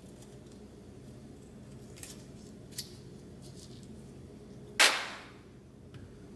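A few light clicks of a small part being handled in a steel bench vise, then one sharp metallic clack about five seconds in as a jigsaw's base is set down on the vise.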